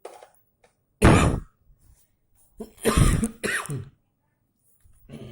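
A man coughs sharply once, then about a second and a half later clears his throat in a longer, rasping burst whose pitch bends.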